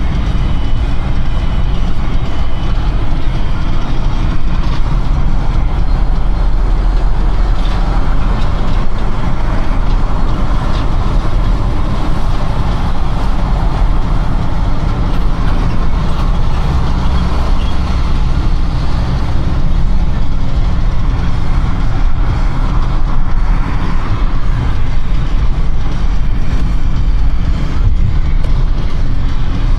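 Steady driving noise of a car moving through city traffic: a continuous deep rumble with an even hiss of road and tyre noise.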